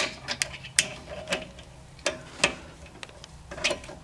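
Hand ratchet clicking in short, uneven runs while a caliper slide pin bolt is turned in, with light metallic clinks of the socket on the caliper.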